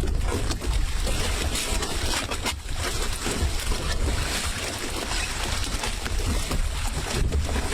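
Wind buffeting the microphone over a steady rush of water-like noise, with a heavy low rumble and no clear pitched engine tone.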